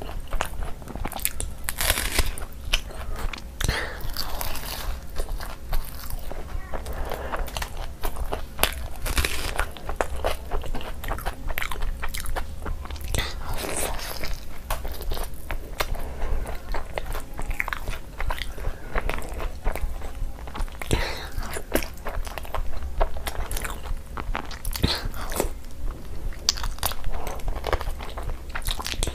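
Close-miked eating sounds: crisp crunching bites of a raw red onion and wet, sticky chewing of luchi and chicken curry, full of small mouth clicks and smacks, over a steady low hum.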